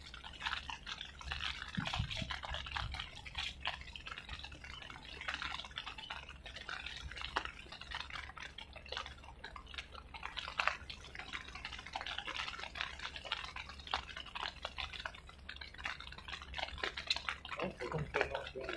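Irregular patter of water drips and small splashes, with a faint steady low rumble underneath.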